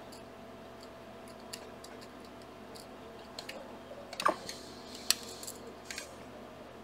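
Small model-kit dome frame parts and a screw being handled and fastened by hand: scattered faint clicks and ticks, with sharper clicks about four and five seconds in.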